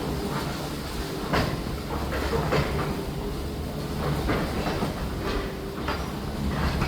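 Heavy demolition machinery running with a steady low engine hum, with irregular knocks and clanks of debris and metal striking, the loudest about a second and a half in and again near the end.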